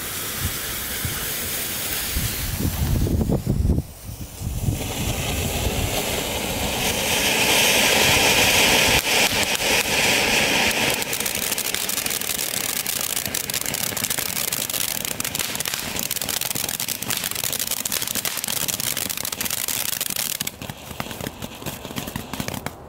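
Small category 1 firework fountains hissing as they spray sparks, with fine crackling throughout. A low rumble comes about three seconds in, the hiss grows louder from about seven to eleven seconds in, and it dies down near the end.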